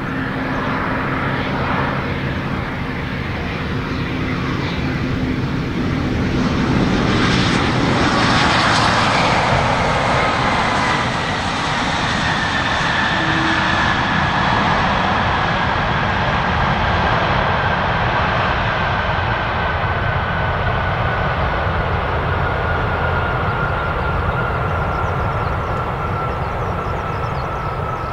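Airbus A350-900's Rolls-Royce Trent XWB engines through a landing: a steady engine hum on short final, then a louder rush of noise swelling about seven seconds in as it touches down and slows. After that comes a long whine that slowly falls in pitch as the engines wind down on the rollout.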